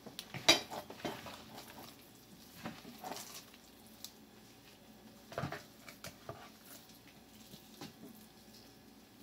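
Gloved hands pressing and patting raw ground-beef meatloaf mixture into a loaf in a baking pan: a few scattered soft pats and knocks, the sharpest about half a second in and another about five and a half seconds in.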